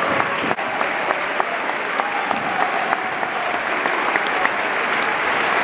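Football stadium crowd applauding: a dense, steady patter of many hands clapping, with players on the pitch clapping back toward the stands.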